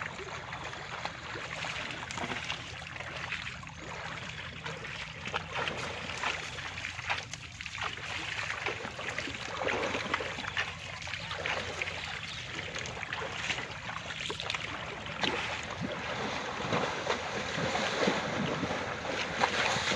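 Water sloshing and splashing as an Asian elephant wades and swims through shallow floodwater, in irregular bursts that grow louder toward the end, with wind on the microphone.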